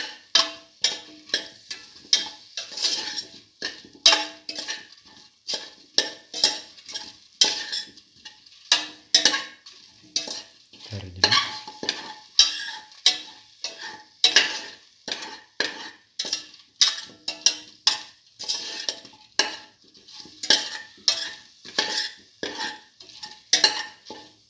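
Metal spoon scraping and knocking against a stainless steel pot at about two strokes a second, as potato cubes, mint leaves and red chillies are stirred through spices in hot oil, with a light sizzle under the strokes.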